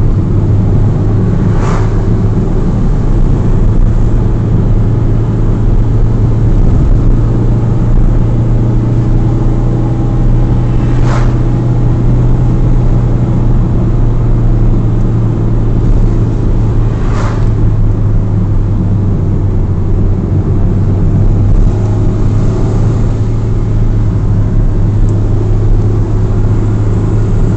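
Car driving, heard from inside the cabin: a steady low drone of engine and road noise, with a few brief faint clicks scattered through.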